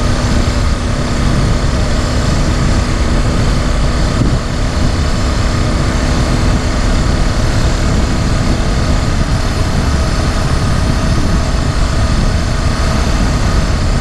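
Small 49cc four-stroke engine on a motorized bicycle running steadily while riding, under heavy wind rumble on the microphone.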